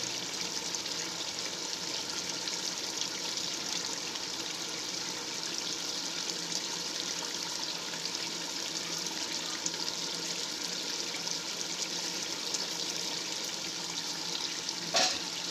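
Steady hiss of chicken masala cooking in an aluminium pot on a gas stove, with one brief knock near the end.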